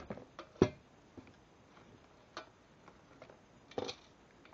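Scattered metal clicks and knocks of steel saw-stand parts and bolt-and-nut hardware being handled and fitted, the sharpest knock about half a second in and a few more near the end.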